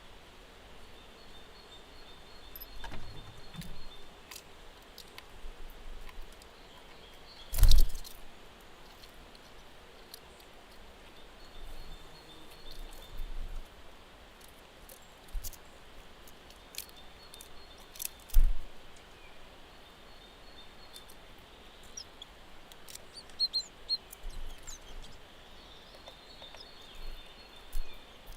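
Outdoor ambience: a steady low hiss with scattered faint clicks and a few small bird chirps, broken by two sharp knocks, the louder about eight seconds in and the other about ten seconds later.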